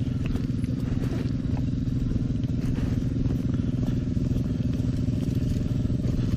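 Dirt bike engine idling steadily, with a few faint light scrapes and clicks over it.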